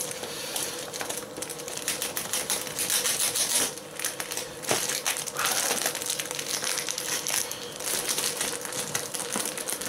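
Crinkling and rustling as a cardboard toy box is handled and turned over, with short scrapes and small knocks against it. A faint steady hum runs underneath.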